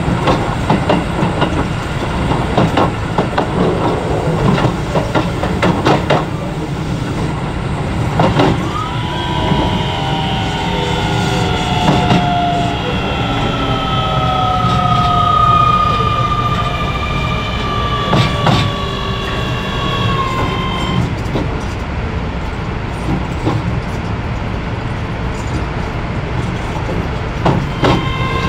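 Running sound aboard a Keio 7000 series electric train: a steady low rumble with rail-joint clicks. From about nine seconds in, a stack of traction-motor whine tones slowly falls in pitch and fades out at about twenty seconds. Another set of steady tones starts near the end.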